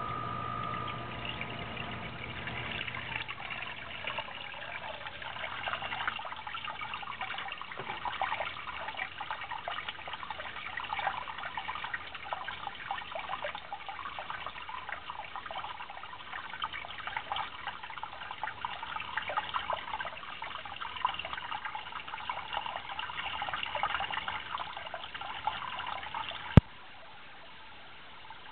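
Water trickling and splashing into a basement sump pit, an irregular dribbling patter, while a low hum dies away in the first few seconds. A single sharp click near the end, after which the sound drops away abruptly.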